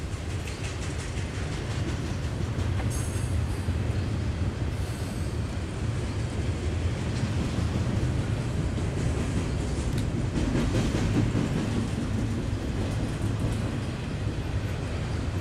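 Double-stack intermodal freight train's container well cars rolling past: a steady low rumble of steel wheels on rail, with occasional clicks.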